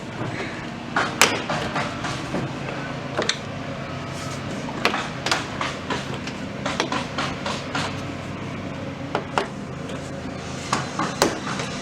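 Irregular sharp clicks and knocks of a plastic van door trim panel being handled and pried at its clips, over a steady low hum.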